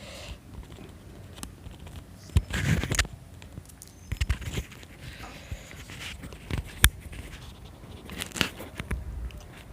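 Handling noise of a clip-on lavalier microphone, a Boya BY-M1, just fixed to a shirt: clothing rustling against it with scattered sharp clicks and scratches, the loudest click about seven seconds in.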